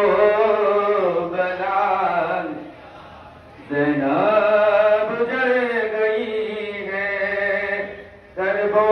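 A single voice chanting a noha, a Shia mourning lament, in long drawn-out melodic phrases, with a pause about three seconds in and a short break near the end.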